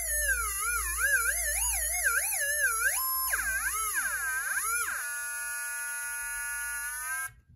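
MicroKits breadboard theremin sounding through its small speaker: an electronic tone that swoops and wobbles up and down in pitch as a hand moves over its wire antenna loops. It then holds a nearly steady pitch, sinking slightly, and cuts off suddenly near the end.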